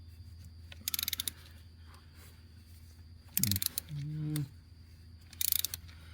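Socket ratchet clicking in three short bursts of rapid clicks as it is worked back and forth, loosening a spark plug from a Ford 5.4 L three-valve V8. A steady low hum runs underneath.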